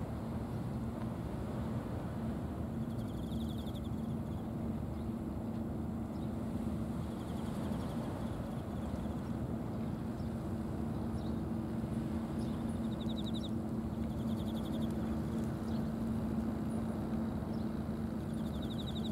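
Engines of a pair of small trawl fishing boats running steadily, a low even drone with a constant hum. Short high trills sound now and then above it.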